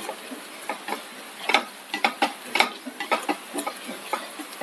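Wooden spatula stirring and scraping grated coconut, shallots and chillies frying in coconut oil in a non-stick pan, with irregular taps and scrapes over a steady sizzle. A cluster of louder scrapes comes midway. The coconut is being roasted brown on low heat.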